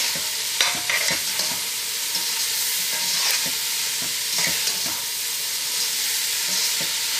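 Chicken pieces and chopped carrot, celery and capsicum sizzling in butter in a large stainless steel stockpot, stirred with a long spoon that scrapes and knocks against the pot now and then.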